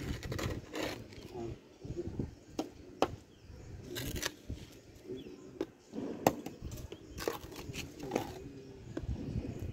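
Small hand trowel scraping and digging into compacted potting soil in a square pot, loosening it, with irregular crunching scrapes and several sharp knocks as the blade strikes soil or the pot's sides.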